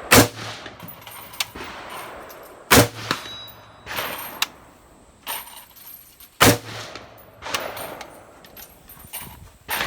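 M16A1 rifle (5.56 mm) firing single shots: three loud cracks a few seconds apart, each with an echoing tail. Fainter bangs come in between.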